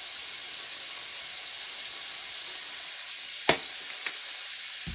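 Mixed vegetables, onions, peppers and grape tomatoes frying in olive oil in a stainless skillet: a steady sizzle. A sharp click about three and a half seconds in, then a fainter one.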